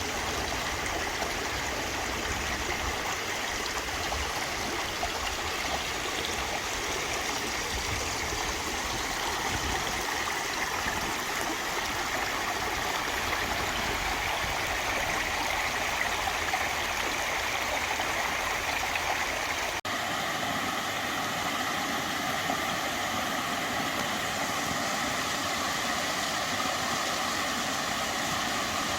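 Mountain valley stream flowing, a steady rushing wash of water. About two-thirds through it drops out for an instant and carries on with less low rumble.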